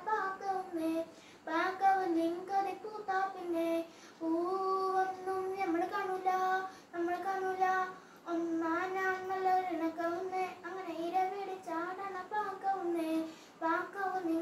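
A young boy singing alone without accompaniment, holding his notes in phrases separated by short pauses for breath.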